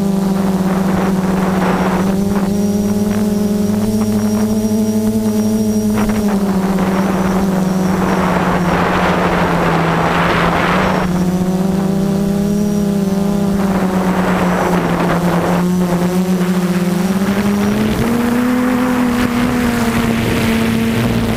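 F330 quadcopter's brushless motors and propellers humming steadily, heard from the onboard camera. The pitch dips a little about six seconds in and rises near the end. A rush of wind over the microphone swells several times, strongest in the middle.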